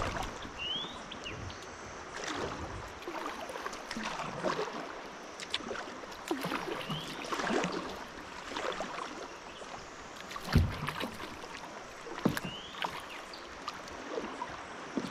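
Kayak paddling on a river: paddle strokes splashing the water irregularly over a steady wash of moving water, with a heavier thump about ten and a half seconds in.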